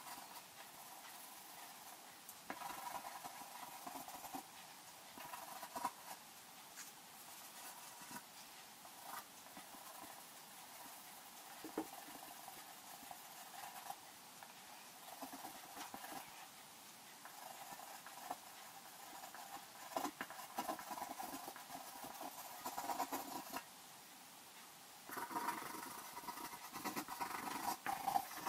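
Graphite pencil scratching across paper in quick shading strokes, coming in bursts with short pauses and loudest near the end.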